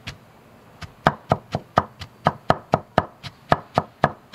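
Knife chopping white radish on a cutting board, dicing it fine: steady strokes about four a second, starting about a second in.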